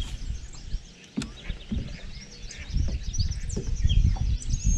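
Songbirds chirping and singing in quick, repeated high notes, over irregular low rumbling and thumps, with one sharp click about a second in.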